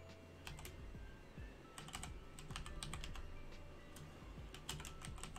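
Computer keyboard being typed on: a few single key clicks, then a quick run of keystrokes about two seconds in and another near the end.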